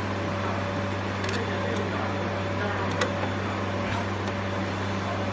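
Steady low mechanical hum with a few faint clicks as a screwdriver is turned to back a screw out of a plastic machine shell.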